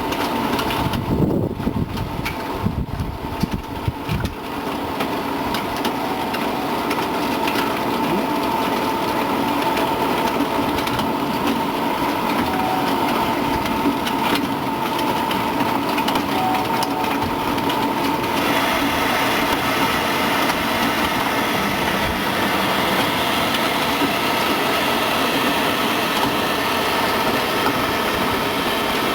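Continuous frying machine running: a steady mechanical hum carrying a few constant tones, with uneven knocks and clatter during the first four seconds. A little past halfway a steady hiss grows louder and stays.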